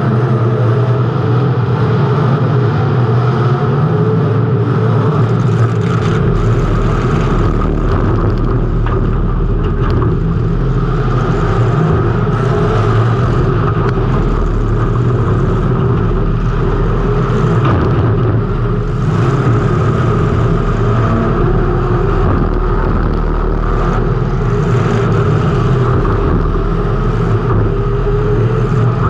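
Race car engine running hard at a fairly steady pitch, heard through a camera mounted on the car. A deeper rumble joins about six seconds in.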